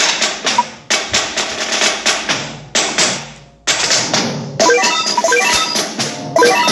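Music driven by percussion: loud, sudden hits that die away, a second or more apart, with short high notes between them.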